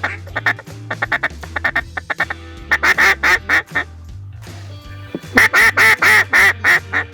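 Duck quacks in quick runs of five or six, with the loudest run near the end, over background music with a steady low beat.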